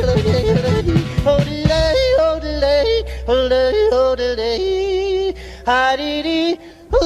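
A voice singing long, high wavering notes with strong vibrato in a yodel-like style over a country-flavoured band. The rhythmic backing drops out about two seconds in, leaving a held low note under the voice.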